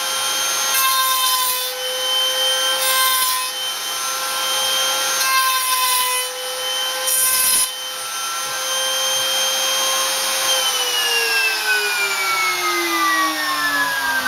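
Router on a pantorouter running with a steady high whine, with several short rasping bursts as the spinning bit cuts dovetail pins into the end of a wooden board. About three-quarters of the way through the router is switched off, and its whine falls steadily in pitch as it spins down.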